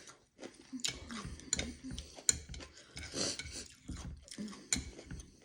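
Eating close to the microphone: soft chewing with a series of sharp clicks and taps of utensils against dishes.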